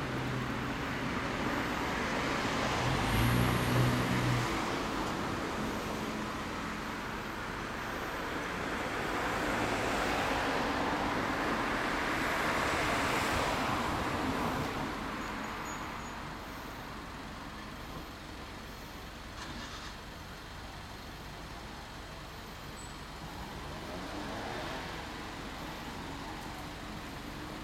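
Street traffic: vehicles passing by, a broad road noise that swells and fades several times, with a steady low hum at first.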